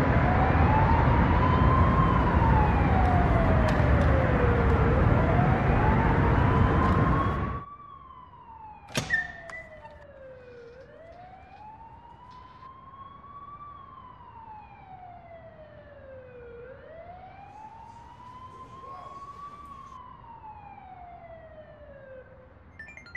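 Emergency vehicle siren wailing, slowly rising and falling in pitch about every six seconds. For the first seven seconds or so it sits over a loud rushing noise. The noise then cuts off suddenly, and the siren carries on much quieter, with one sharp knock about a second later.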